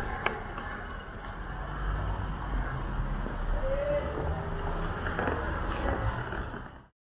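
City street traffic: a steady low rumble of vehicle engines. It cuts off abruptly into silence near the end.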